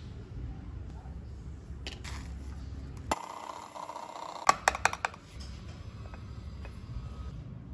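Kitchen utensils clicking and clinking against a ceramic bowl and a glass over a low steady hum, with a quick cluster of sharp clicks about four and a half seconds in.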